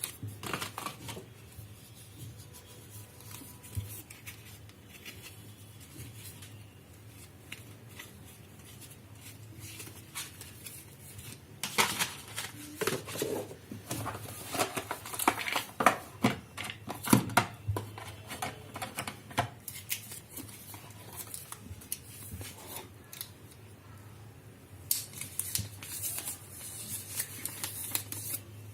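Handling noises from unboxing a smartphone: scattered clicks, taps and scrapes of packaging and parts over a low steady hum. The clicks are loudest and most frequent in the middle, and a brighter rustling sets in near the end.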